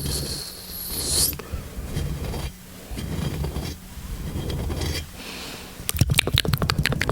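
Close-miked ASMR mouth sounds: a breathy hiss that stops about a second in, then soft rubbing and muffled wet sounds, and near the end a fast run of sharp mouth clicks.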